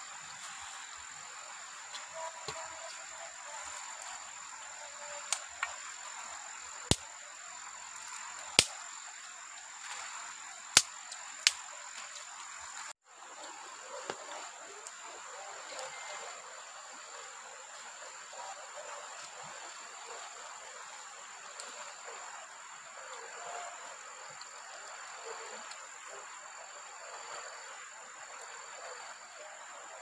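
Outdoor ambience of insects: a steady high drone over a low hiss, with faint on-and-off chirping joining in the second half. About six sharp snaps stand out between about five and twelve seconds in, and the sound drops out for a moment near the middle.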